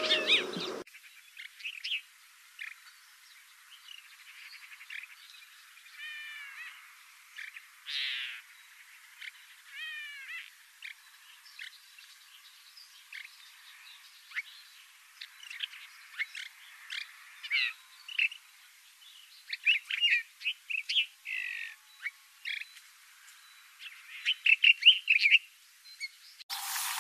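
Desert finch singing: a run of short chirps and twittering notes, with quick series of slurred, curving notes about six and ten seconds in. The low end is filtered away, leaving only the high notes.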